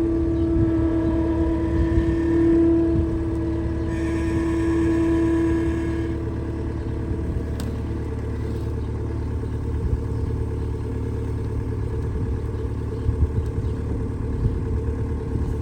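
A farm machine's engine running steadily, with a high steady whine over it that stops about six seconds in.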